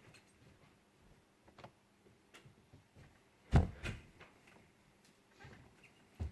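Quiet room with scattered faint clicks and knocks, a sharp thump about three and a half seconds in, and another knock near the end.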